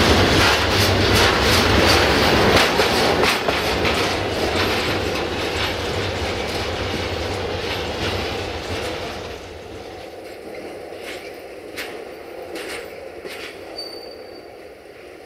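Loaded freight tank wagons rolling past close by, wheels clattering rhythmically over rail joints. About nine seconds in the sound drops away as the end of the train passes and recedes, leaving fainter scattered clicks.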